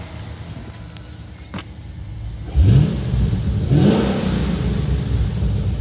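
Holden Commodore SS 6.0-litre V8 running at idle, then revved in two quick throttle blips about a second apart, each a sharp rise in pitch. It runs on steadily at a louder level after the second blip.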